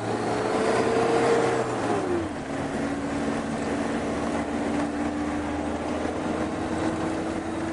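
Off-road 4x4's engine working under load, its pitch rising a little, dropping sharply about two seconds in, then slowly climbing again.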